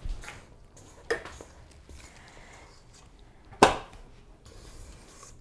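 A spatula scraping sticky cookie dough out of a stainless steel mixing bowl into a metal springform pan. There are a few soft knocks, and one sharp metallic clank about three and a half seconds in.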